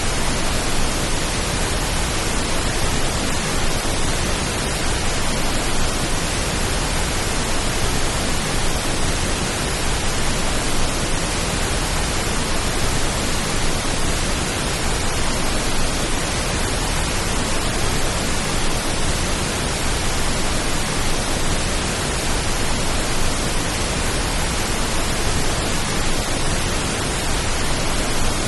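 Steady pink noise: a continuous, even hiss that does not change, made as a rain-like sleep sound.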